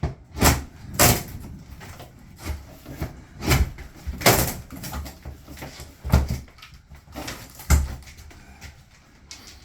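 About six irregular knocks and bangs, spaced unevenly over several seconds, the kind made by wood being struck or moved.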